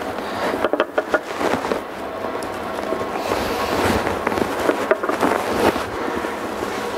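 A steel wet cylinder liner clicking and knocking against the cast-iron block as it is set down and pressed into its bore for a trial fit, over a faint steady shop hum.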